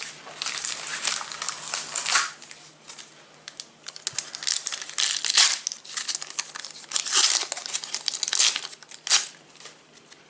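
Foil wrapper of a Panini Adrenalyn XL trading-card pack being torn open and crinkled by hand, in a series of irregular rips and crackles.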